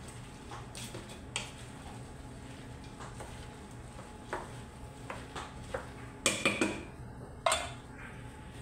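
Light knocks and clinks from a stainless-steel cooking pot as a hand mixes raw lentils and chopped vegetables in it, with a cluster of louder clatters about six seconds in and one more near the end. A faint steady low hum runs underneath.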